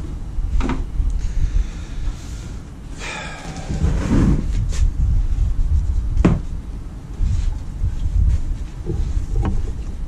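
Hands working a wiring harness and its plastic split-loom wire wrap: rustling and scraping, with several sharp clicks and knocks, over a steady low rumble.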